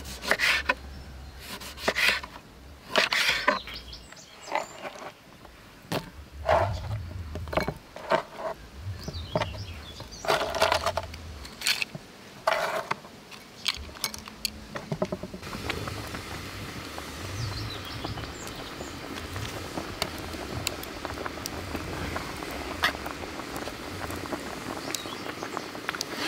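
A run of short knocks and clatters as cut lemons and cinnamon sticks are handled on a wooden board and dropped into a glass bowl. About halfway through this gives way to the steady bubbling of melon syrup boiling in a large shallow pan.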